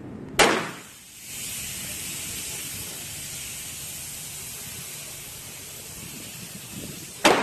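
Two sharp revolver shots, one about half a second in and one near the end, with a steady hiss between them: air escaping from a shot-out truck tire.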